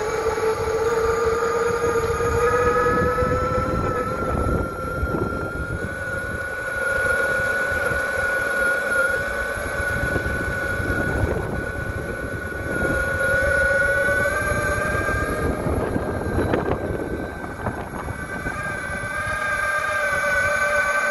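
Electric off-road skateboard's motors whining steadily while riding, the pitch rising and falling gently with speed, over the rumble of the wheels on the ground.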